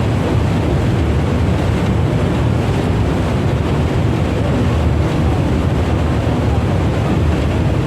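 Steady wind buffeting the microphone over a loud low rumble, with no clear bird calls.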